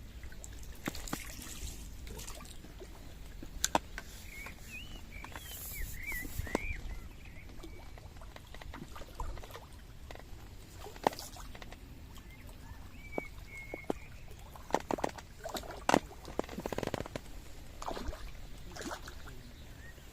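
Water sloshing and trickling at the waterside, with scattered sharp clicks and knocks, several of them close together near the end.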